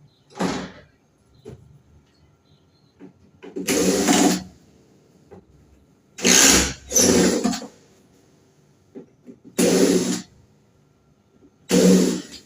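Power screwdriver running in six short bursts, each under a second, as screws are driven out to open up a window air conditioner's casing.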